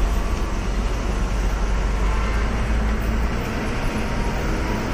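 Bus engine and road noise heard from inside the bus: a steady low rumble, with the deepest part easing slightly about three and a half seconds in.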